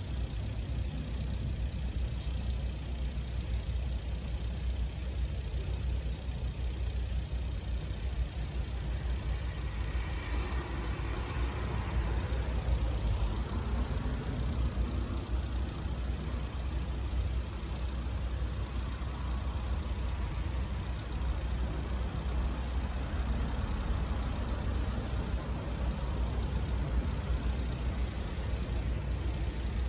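Road traffic: a steady low rumble of cars, with one vehicle swelling louder about ten seconds in and fading over the next few seconds, and a fainter one passing near twenty seconds.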